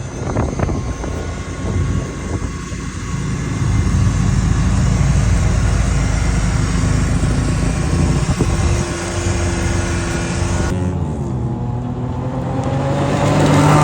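UTV engine running under way, with a broad rushing noise over a strong low engine note. About three-quarters of the way through the sound changes abruptly and the engine note drops, then climbs again as it speeds up near the end.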